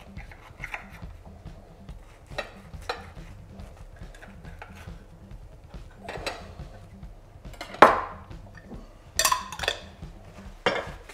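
Table knife sawing through crusty ciabatta rolls on ceramic plates: crust crackling, with the blade knocking the plate. Sharper clinks of knife and crockery come in the last few seconds, the loudest about eight seconds in.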